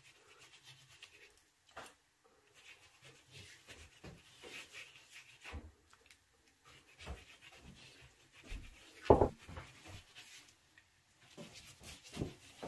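A silicone pastry brush dipped in beaten egg and brushed over thin rolled dough circles: soft wet brushing and dabbing with small clicks of the brush against the dish. One sharper knock comes about nine seconds in, with a few more near the end.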